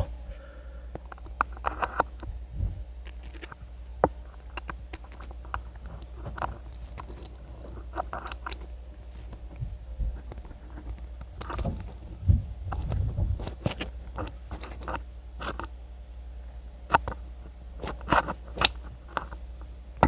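Brass pin-tumbler padlock being single-pin picked with a hook pick under bottom-of-keyway tension, miked very close: irregular small clicks and scrapes of the pick lifting the pins, among them two pins setting at the shear line. A steady low hum runs underneath.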